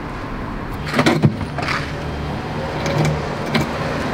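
A car door unlatching with a few sharp clicks about a second in and opening, over a low steady hum.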